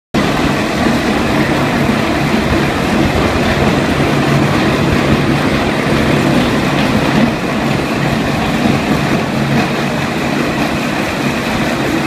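Electric remote-controlled concrete floor grinder running, its rotating grinding disc working over bare concrete. It makes a steady, loud grinding noise over a low motor hum.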